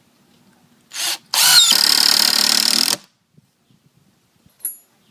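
RIDGID 18V X4 Hyper compact cordless impact driver driving a 3.5-inch wood screw into a 2x4: a short trigger blip about a second in, then about a second and a half of rapid hammering impacts as the screw goes in. A brief click follows near the end.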